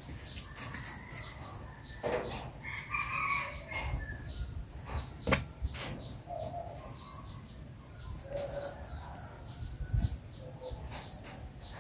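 Quiet background with scattered faint bird chirps and a few light clicks, over a faint steady high tone.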